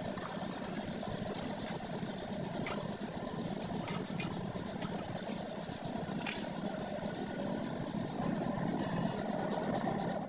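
A steady mechanical running sound, like an engine idling, with a few sharp clicks scattered through it.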